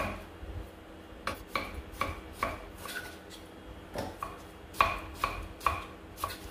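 Knife slicing tomatoes on a chopping board: sharp knocks of the blade hitting the board, two to three a second, in runs with a short pause about halfway through.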